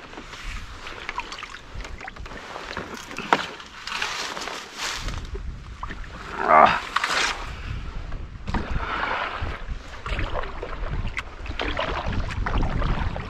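Kayak being paddled through marsh water: irregular paddle strokes splashing and dripping, with one louder splash about six and a half seconds in.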